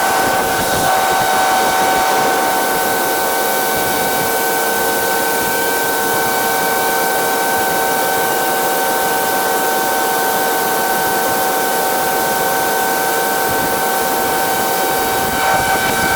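Harvest machinery running steadily under load, a constant engine and drive noise with a steady high whine over it.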